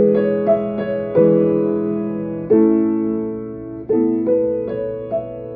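Solo piano playing slow, ringing chords, a new chord struck every second or so and left to fade, with a few lighter notes in between.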